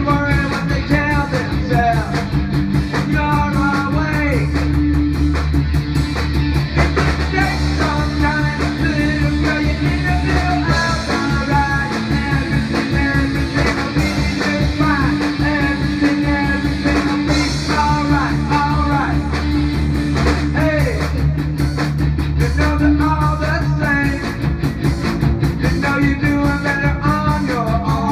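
Rock band playing live: distorted electric guitar, bass guitar and a drum kit, with a man singing lead into a microphone.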